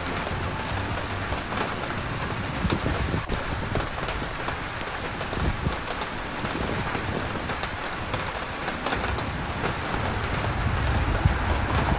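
Steady rain falling, with many small drop ticks, over a low rumble of street traffic.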